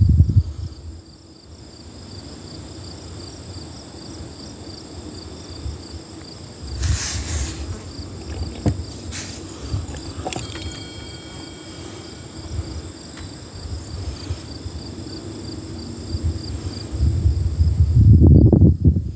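Insects chirping in a steady, rapid, high-pitched pulse, with a low rumbling on the microphone that swells near the end and is the loudest sound.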